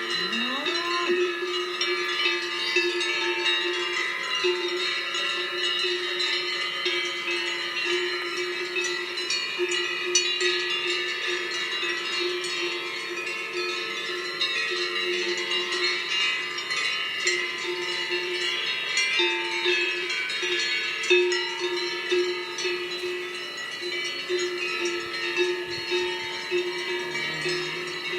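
Many cowbells clanking unevenly and overlapping without a pause, with no regular rhythm.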